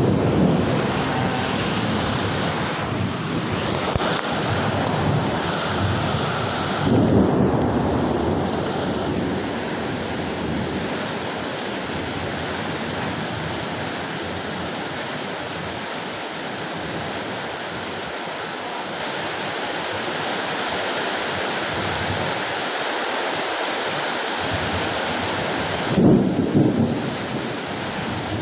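Heavy rain pouring steadily during a thunderstorm, with a rumble of thunder about seven seconds in and another, louder, near the end.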